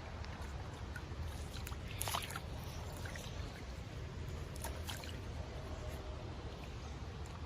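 Creek water trickling steadily, with two short splashes, one about two seconds in and another near five seconds, as a magnet is worked through the shallow water.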